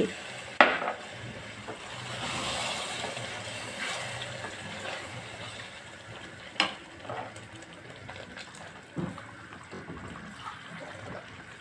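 Wooden spatula stirring thin, freshly watered gravy in a steel kadhai: liquid sloshing, with sharp knocks of the spatula against the pan about half a second in and again near the middle.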